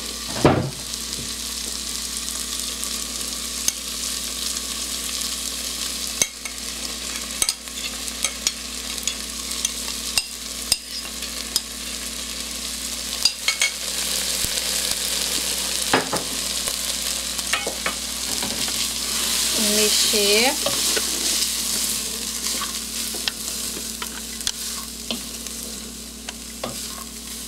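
Hydrated ground soy protein frying with tomato in a pan, sizzling steadily while a spoon stirs it, with the spoon knocking and scraping against the pan now and then.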